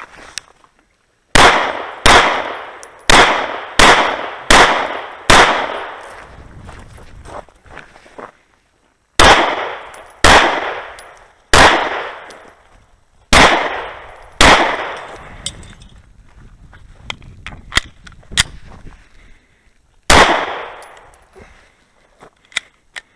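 Pistol shots fired at close range: a quick string of six, a pause of about three seconds, five more at a slower pace, then one last shot near the end, each with a long echoing tail. Quieter clicks and knocks fall between the strings.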